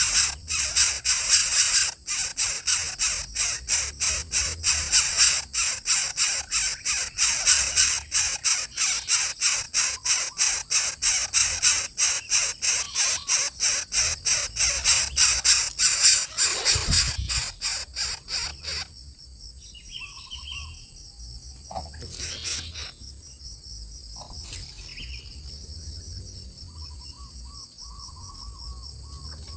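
Loud, fast rasping pulses, about four a second, that stop abruptly about two-thirds of the way in. After them comes a steady high insect trill with a few short bird calls.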